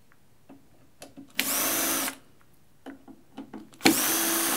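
Cordless drill-driver running in two short bursts of steady whirring as it backs screws out of a mixing console's casing, the first about a second and a half in and the second near the end. Small clicks and knocks of handling come in between.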